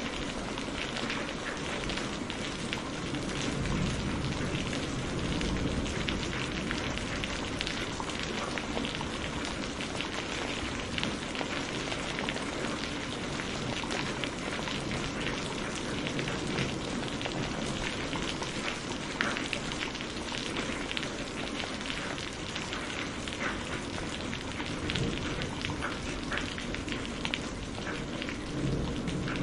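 Heavy rain falling steadily, a dense patter of individual drops over a continuous hiss.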